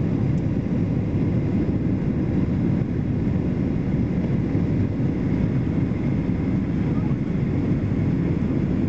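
Steady low rumble inside an airliner cabin during the landing approach: jet engine and airflow noise heard from a window seat.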